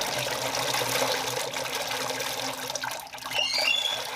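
Water pouring into a bowl of raw peanuts to soak them, a steady splashing run of water that eases about three seconds in.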